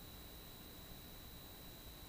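Faint steady hiss with one constant high-pitched tone running through it: the recording's own electronic noise. No engine or wind sound is picked up, a fault in the camera's audio recording.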